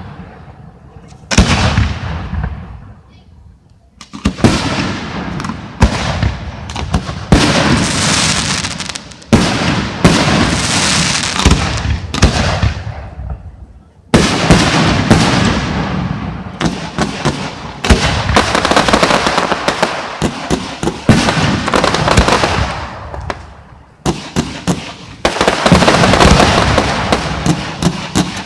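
Fireworks display: aerial shells bursting in quick succession, a loud bang every second or two, each one fading out. Dense rapid crackling comes near the end.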